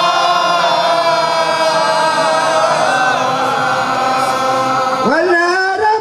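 Men's voices chanting together in one long, drawn-out held note of Arabic mawlid devotional poetry. About five seconds in, a new phrase starts with a sharp rise in pitch.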